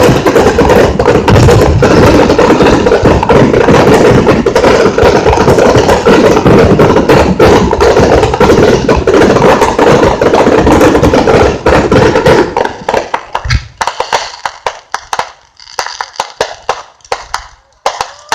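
Fireworks crackling in a loud, dense barrage of rapid pops for about twelve seconds, then thinning out to scattered separate pops as they die down.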